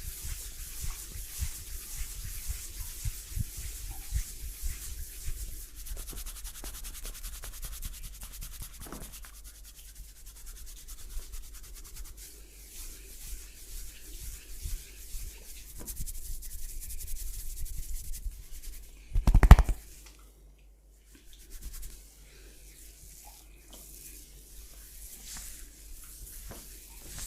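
Hands rubbing and massaging a person's skin and hair, a continuous scratchy friction, with one short loud burst about two-thirds of the way through.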